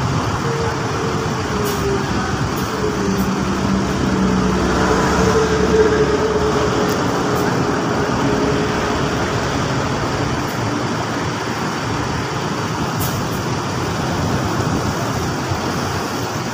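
Coach diesel engine running as the bus pulls away at low speed. A faint whine in the engine note rises around five seconds in, then settles.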